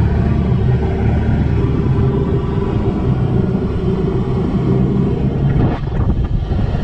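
Can-Am Defender side-by-side's Rotax engine running steadily at driving speed on a gravel road, with a low rumble from the drivetrain and tyres. A brief rattly patch comes about six seconds in.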